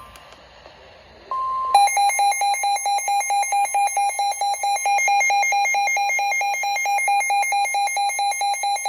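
Weather radio alert: a short steady warning tone, then a loud electronic alarm beeping rapidly, about five beeps a second, signalling an incoming warning.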